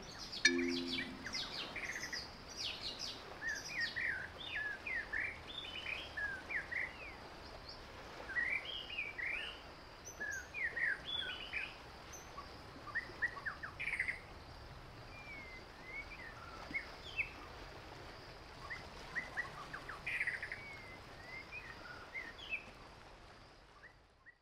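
Birds chirping: many short, quick calls over a faint steady background, fading out at the end.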